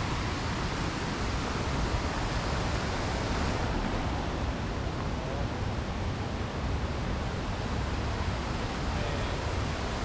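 Waterfall: water falling in a steady, even rush.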